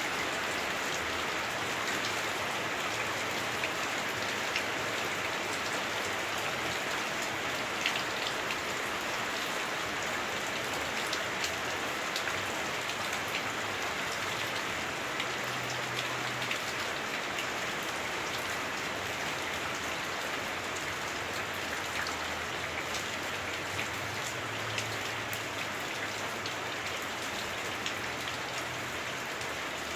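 Heavy rain drumming steadily on a house roof, heard from inside through the roof, with scattered sharper drop impacts.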